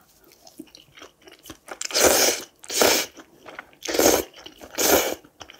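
Ramen noodles wrapped in seaweed slurped into the mouth in four noisy pulls about a second apart, starting about two seconds in, with faint chewing clicks before them.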